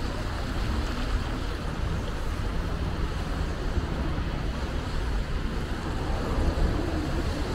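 Steady low wind rumble on the microphone over city traffic noise, picked up while cycling.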